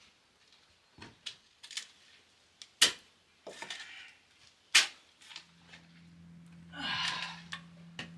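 Steel shovel digging into stony soil: sharp clinks and scrapes as the blade strikes dirt and rocks, two of them loud, about three and five seconds in. A steady low hum comes in just past halfway, with another longer scrape of the shovel about a second later.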